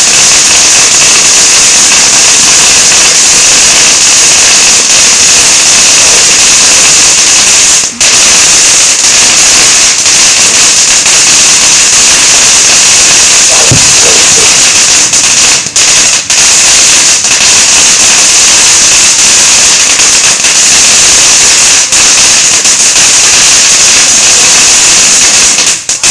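Dense, unbroken crackle of many firecrackers going off at once, loud enough to overload the microphone, with a couple of brief breaks.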